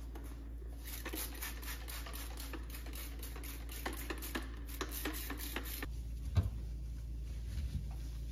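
Hand trigger spray bottle squirting cleaning liquid over a stainless steel gas hob in a quick run of short hissing sprays, which stop about six seconds in. Then a single knock, and faint light handling sounds.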